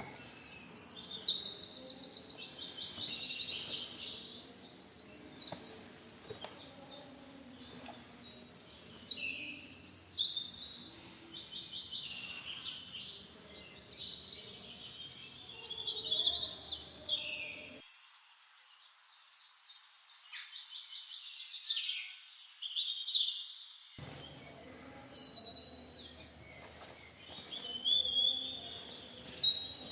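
Birdsong: a small bird singing fast trills in short phrases every few seconds.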